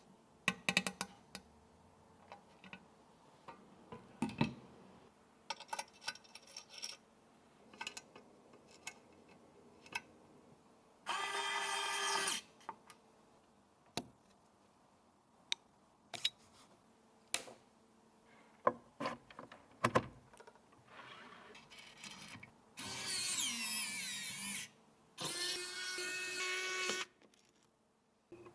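Small electric screwdriver or drill running in three short bursts of a second or two each, the middle one sliding in pitch, with scattered clicks and knocks of small hard parts being handled between them.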